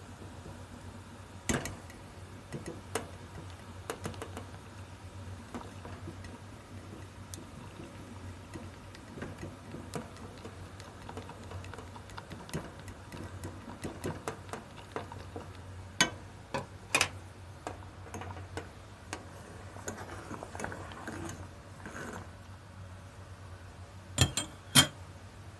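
Chopsticks tapping and clicking against a ladle and pot while stirring miso into the broth, over a low steady hum. There are scattered light ticks, a few sharper knocks, and two close together near the end.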